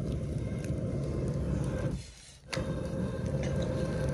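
Wooden rolling pin rolling roti dough on a wooden board: a low rumbling, scraping noise in long strokes, with a short pause about two seconds in.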